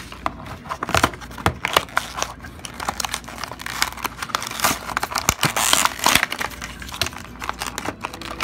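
Hands prying and tearing open a die-cast toy car's plastic blister and cardboard backing card: irregular crinkling, crackling and tearing of the packaging.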